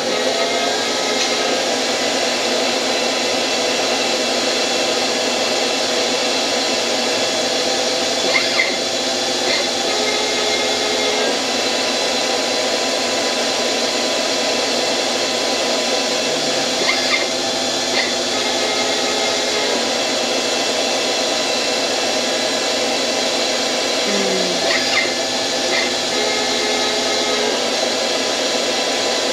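CNC-converted metal lathe running a cutting cycle: a steady machine whine made up of several steady tones, some of which shift in pitch now and then as the tool moves. Short sharp chirps come three times, about eight seconds apart.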